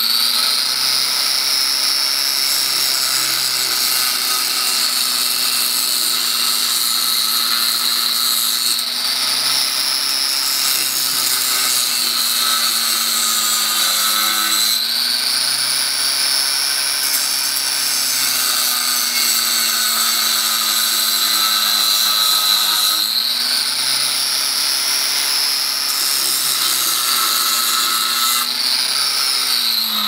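Angle grinder with an abrasive cutting disc running hard against the steel shell of a refrigerator compressor, cutting it open. Its high whine sags slowly under load and then jumps back up, about four times, and winds down at the very end.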